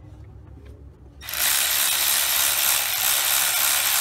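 Milwaukee M12 cordless ratchet running steadily for about three seconds, starting about a second in, spinning out a thermostat housing bolt.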